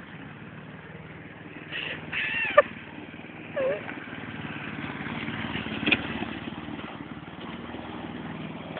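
Small petrol lawn mower engine running steadily, with a few brief whistle-like sounds and a sharp click about two and a half seconds in.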